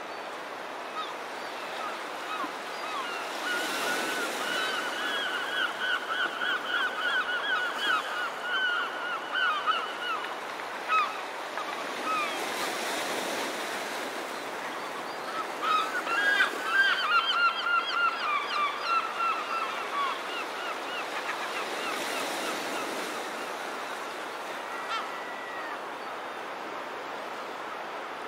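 A flock of birds calling, many rapid overlapping calls in two bouts, the first starting a few seconds in and the second in the middle, over the steady wash of small waves that swells up three times.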